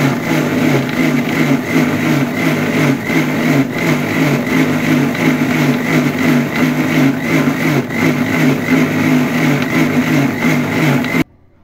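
Electric mixer-grinder running steadily at speed, its stainless-steel jar blending avocado into a thick purée for juice. It is switched off and cuts out suddenly near the end.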